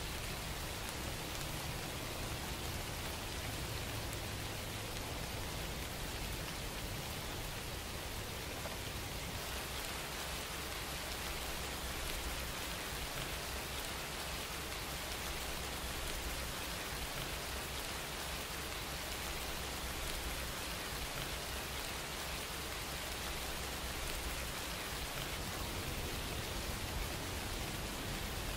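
Steady, even noise like rain falling, with no distinct events.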